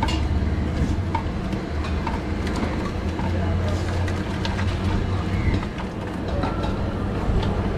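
Busy street-food stall noise: a steady low rumble with scattered clinks of steel utensils and background voices.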